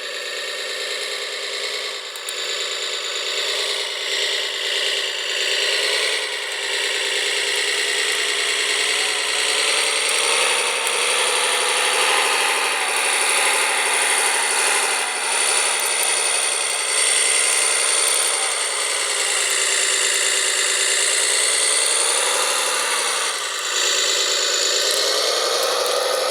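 Small electric motors and gearboxes of radio-controlled construction models whining, the pitch sliding up and down as they speed up and slow down, with a sudden drop and change in tone near the end.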